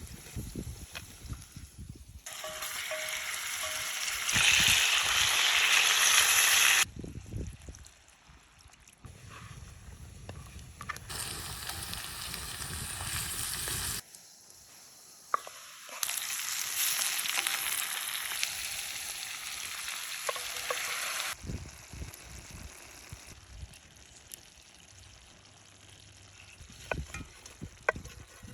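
Ojakhuri, meat and potatoes, frying in a pan and sizzling loudly. The sizzling comes in three separate stretches that start and stop abruptly, with quieter gaps of small clinks and knocks between them.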